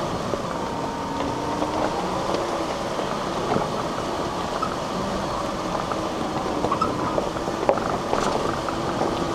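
Four-wheel drive's engine running at low speed while it crawls over a rough dirt track, heard from inside the cabin, with scattered clicks and knocks as the body and gear rattle over the bumps.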